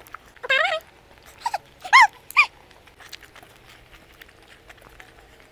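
Four short, high-pitched animal cries that rise and fall in pitch, bunched in the first two and a half seconds, over faint scattered clicks.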